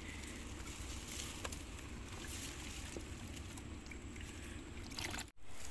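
Faint rustling and light taps of a nylon mesh fish trap being handled, over a steady low rumble; the sound drops out for a moment near the end.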